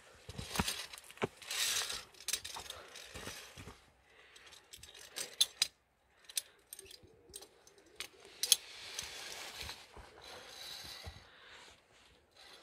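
Via ferrata lanyard carabiners and chain clinking against the steel safety cable as the climber clips along it, in a few sharp metallic clicks with a brief ringing, between stretches of softer rustling.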